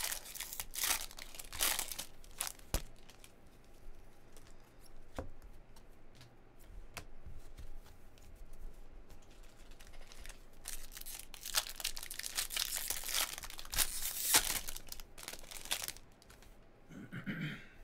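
Foil wrapper of a baseball-card pack torn open and crinkled by hand, then the cards slid and rustled through. The crinkling comes in two spells, at the start and again for a few seconds past the middle.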